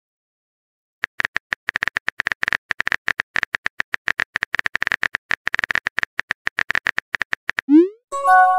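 Simulated phone-keyboard typing sound effect: a rapid run of short, light clicks, one per letter, starting about a second in. Near the end, as the message is sent, a short rising tone is followed by a brief chime of several steady tones.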